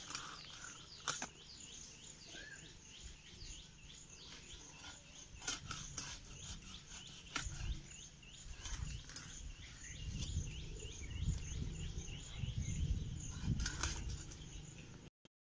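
Rohu fish being scaled against a fixed curved cutting blade, with scraping and scattered knocks of the fish and hands on the blade and wooden board, heaviest near the end. Behind it, a high chirp repeats about three times a second.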